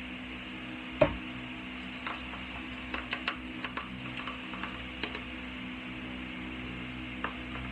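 Light clicks and taps of a spoon stirring shaving powder and water in a small mixing bowl, after one sharper knock about a second in, over a steady low hum.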